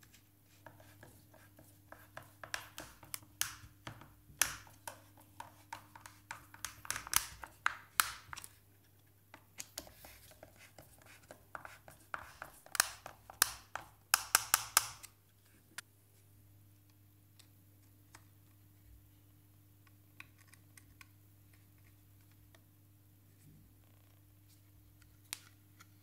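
Screws being driven into a speaker enclosure panel with a hand screwdriver: a run of irregular clicks, ticks and short scratchy creaks for about fifteen seconds, then only a steady low hum with a few faint ticks.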